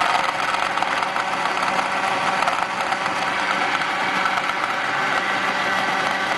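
Countertop blender running steadily at full speed, blending chopped lemons with mint leaves, water and a little ice: the first blend of a lemon-mint drink, before it is strained.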